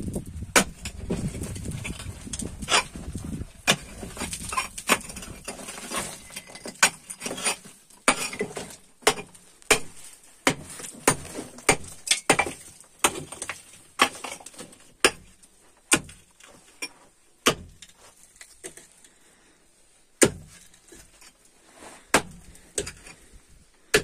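Pickaxe striking a rubble-stone wall and hard-packed earth, repeated sharp blows about one a second that thin out near the end.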